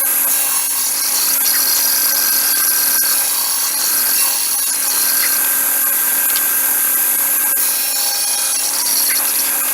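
Table saw running with a steady high-pitched whine over a hiss, its blade tilted for a bevel cut on timber.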